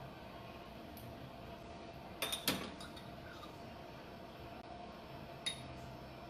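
A few light clinks of a metal spoon as diced pimentos are spooned into a skillet, the loudest a quick cluster a little over two seconds in, over a low steady room hum.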